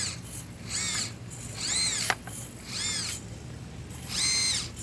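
Tiny brushless motor of an Axial SCX24 micro crawler whining in four short throttle bursts, its pitch rising and falling with each burst as it climbs over rocks. A small click comes about two seconds in.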